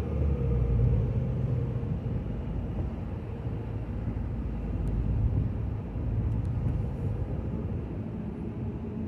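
A car driving along, with a steady low rumble of engine and tyres on the road and a faint steady hum.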